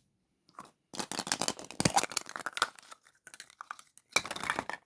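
A toy-capsule wrapper being torn open and crinkled by hand: quick runs of crackling, a dense stretch about a second in, sparser crackles after, and another short burst near the end.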